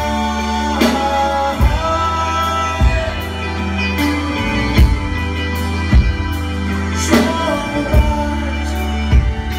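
Live rock band playing a slow prog song: sustained keyboard and electric guitar chords over bass, with drum hits about once a second and a male voice singing.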